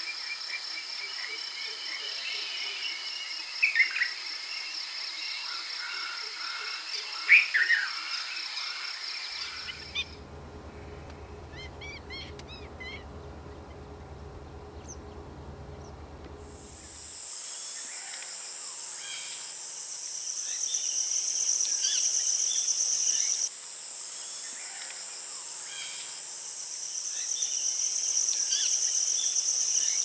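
Field ambience of insects and birds, changing twice. First comes a steady high insect trill under scattered bird calls, with two sharper chirps standing out. Then a low rumble with a few faint chirps. From about halfway, a loud high insect drone swells and fades twice.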